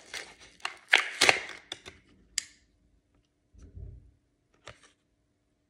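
Retail knife packaging being pulled open and handled: a cluster of crackles and sharp clicks in the first two and a half seconds, a soft low thump about three and a half seconds in, and a last click near five seconds, then near silence.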